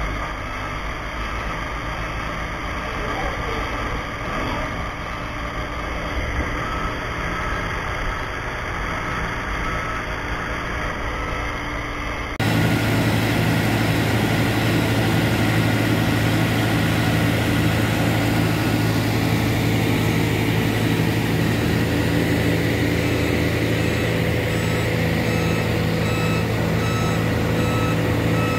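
Steady, rumbling background noise that gives way abruptly, about halfway through, to a louder, steady low drone of a truck engine running, probably a fire engine on scene. Over the last part a reversing alarm beeps in an even on-off pattern.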